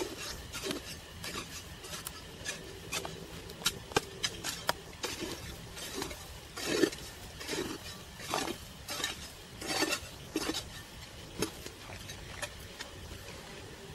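A metal-bladed hoe scraping and chopping into loose dry soil in repeated irregular strokes, with a few sharp clicks of the blade, as mixed soil is pulled into a planting hole.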